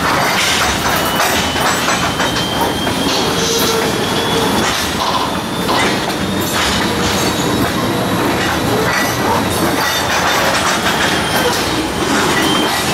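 Conrail freight train's covered hopper cars rolling past close by: a steady rumble of steel wheels on rail with repeated clicks over the rail joints and thin, high wheel squeal.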